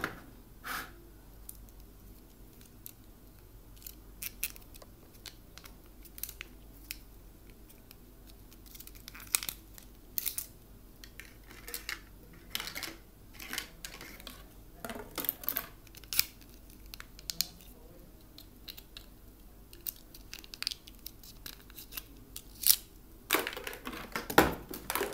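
Cardboard and plastic packaging being handled and opened: scattered crinkling, rustling and sharp clicks, busiest and loudest near the end.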